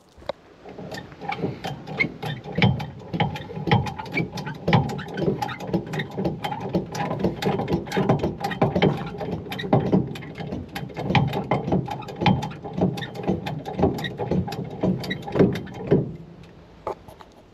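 Hand-pumped hydraulic body ram (porta-power) pushing out crushed sheet metal inside a car's trunk, a dense run of irregular clicks and knocks from the pump and the loaded panel as the dent is jacked straight.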